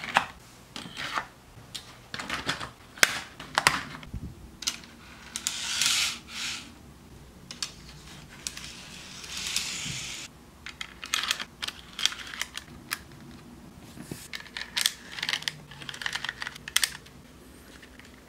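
Plastic N-scale model track, platform pieces and train cars being handled: a string of small sharp plastic clicks and clacks. Two longer scraping sounds come about five and nine seconds in, as pieces are slid into place on the track.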